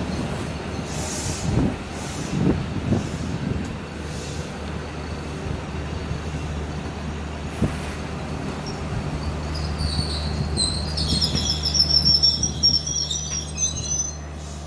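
Russian Railways Talgo 'Strizh' passenger coaches rolling past, their wheels knocking a few times over rail joints. A steady low hum sets in about four seconds in, and high, wavering wheel squeal rises near the end.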